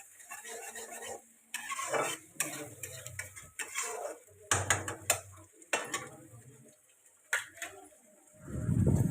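Kitchen utensils clinking, knocking and scraping against cookware in irregular strokes, as in stirring. Near the end comes a louder, dull, low thump.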